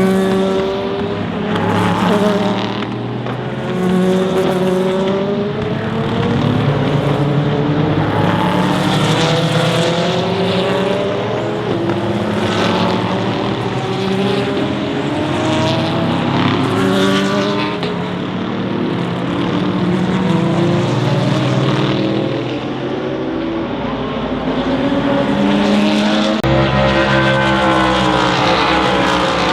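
Sports-prototype and GT race cars at full racing speed passing one after another in near-continuous traffic, each engine's note bending down in pitch as it goes by, with several cars often heard at once.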